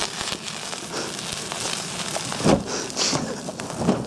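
Advent wreath burning in open flames, with a steady crackle and hiss. Two louder knocks come about halfway through and near the end.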